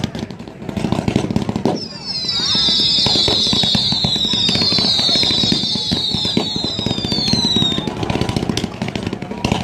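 500 g consumer firework cake ('Mirage' finale set) firing a rapid barrage of whistling shots over continual crackles and pops. From about two seconds in, many overlapping whistles, each falling in pitch, run for some six seconds before the firing thins out near the end.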